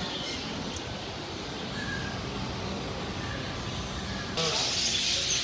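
Steady low background noise with a faint short chirp, then an abrupt jump about four seconds in to caged birds calling over a louder hiss.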